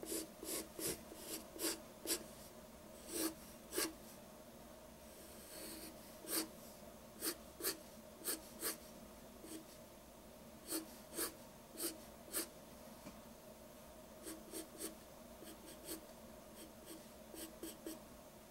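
Pencil on paper, making quick short sketching strokes in irregular runs of a few strokes at a time, with one longer, softer stroke about five seconds in.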